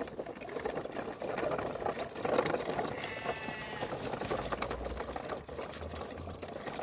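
Plastic toy tractor and trailer being pulled on a string over gravel, their wheels giving a busy, steady rattle. A goose gives a short nasal call about three seconds in.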